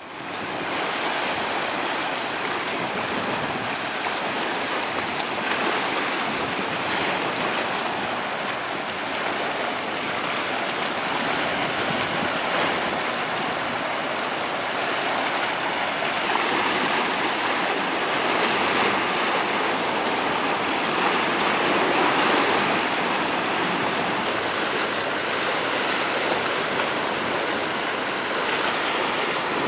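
Waves washing against the shore: a steady rushing of water that swells and eases gently.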